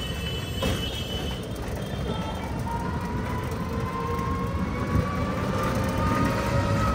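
Ride noise from inside an e-rickshaw jolting through traffic: a steady low rumble, with a thin whine that rises slowly in pitch over the last few seconds.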